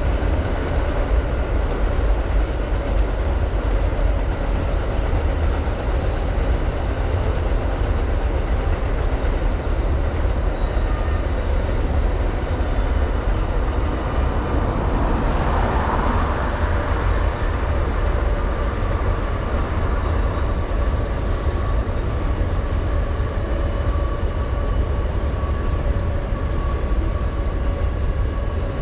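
Amtrak Auto Train rolling past across a trestle bridge: a steady, continuous rumble of wheels on rail, with a brief hiss about halfway through and a faint, thin steady tone in the later part.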